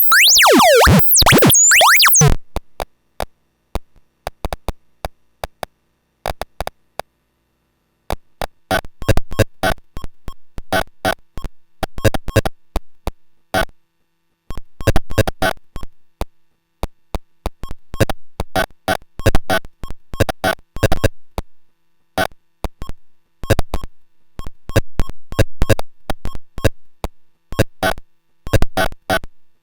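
Paratek КОСМИЧЕСКИЙ ШУМ eurorack module, a Jupiter Storm-style noise source built on square-wave oscillators, making harsh synthesized space noise. For about the first two seconds it plays dense, sweeping, gliding tones that cut off abruptly. Scattered clicks and a short silence follow, and from about eight seconds in come irregular, stuttering bursts of crackling pulses.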